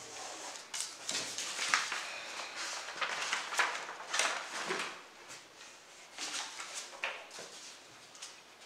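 Sheets of printer paper rustling and sliding on a wooden table as they are handled, busiest in the first half and quieter near the end.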